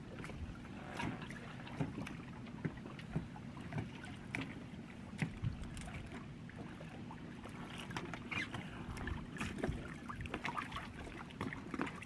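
Water lapping and slapping against an inflatable dinghy alongside a boat hull, over a steady low rush, with scattered small knocks and clicks as mooring lines and fittings are handled.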